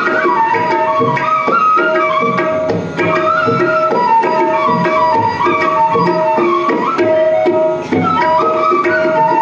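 Indian flute playing an ornamented classical melody with tabla accompaniment, over a steady held drone note.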